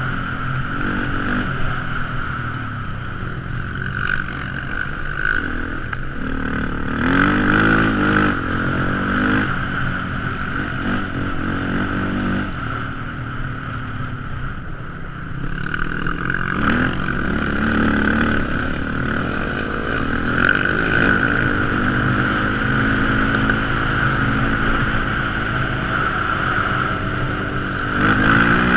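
Quad ATV engine running under way, its revs climbing and dropping several times, with a steady high whine alongside.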